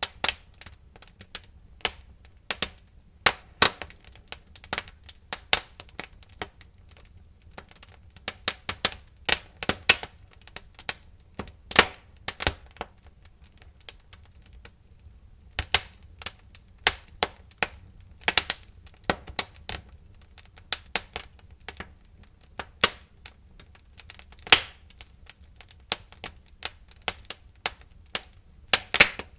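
Wood fire crackling, with irregular sharp pops and snaps at uneven intervals over a faint low rumble.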